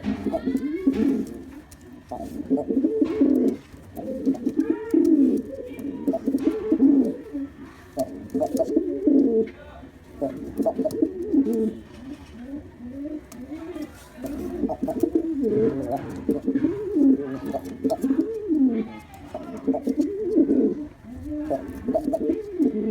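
Male domestic pigeon cooing over and over in low, rolling phrases of a second or two each, with brief pauses between.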